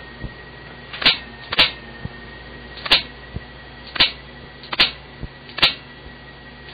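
A series of about six sharp clicks at uneven intervals, some followed by a fainter click about half a second later, over steady tape hiss with a faint high whine.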